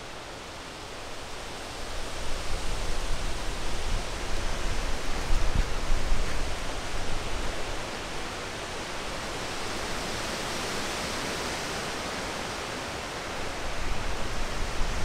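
Rain in a passing thunderstorm, a steady rushing hiss, with gusts of wind buffeting. It swells about two seconds in and gusts again near the end.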